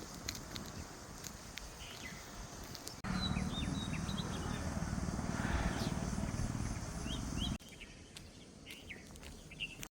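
Outdoor ambience with small birds chirping on and off, short high chirps scattered throughout. From about three seconds in to about seven and a half seconds, a louder low rumble sits under the chirps, starting and stopping abruptly.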